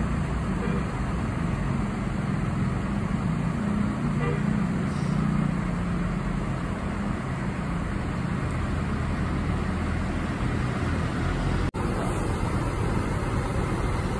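Diesel engines of long-distance buses running at low speed as they move through a bus terminal: a steady low engine drone with traffic noise around it. The sound drops out for an instant near the end.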